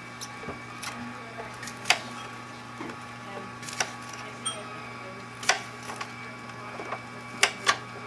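Omega 8004 masticating juicer's electric motor running with a steady hum, while produce is cut on a tray in irregular sharp clicks and knocks, two loud ones close together near the end.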